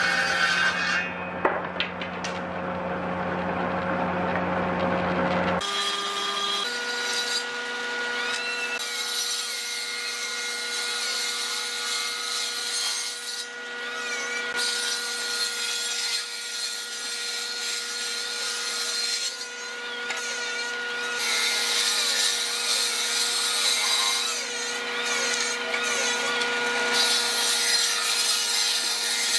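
Combination woodworking machine with its table saw running steadily while wooden boards are ripped through the blade, cutting noise coming and going in several passes with short breaks. In the first few seconds a lower machine hum cuts off abruptly, giving way to the saw.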